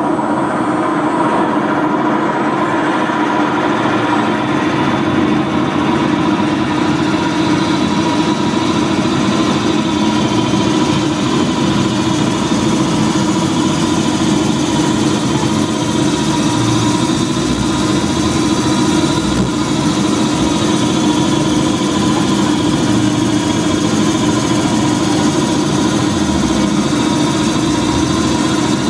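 Loud, continuous drone of live electronic noise music: a dense, machine-like wash with steady held tones and a wavering high line, the upper hiss building over the first few seconds, with no breaks.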